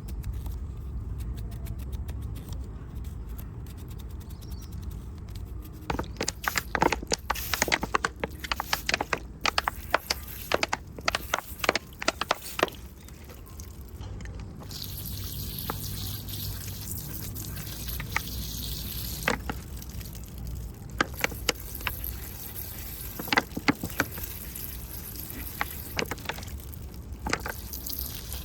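Close-up cleaning of a 1:14 die-cast model motorcycle: irregular clicks and taps of tools and hands on the small model, with a steady hiss lasting about five seconds near the middle.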